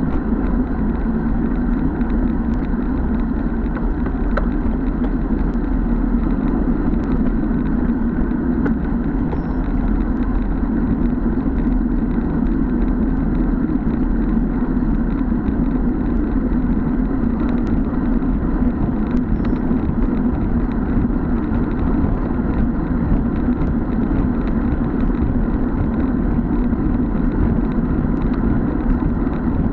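Steady rush of wind on a bicycle-mounted action camera's microphone, mixed with tyre noise, as the road bike runs at about 45 km/h.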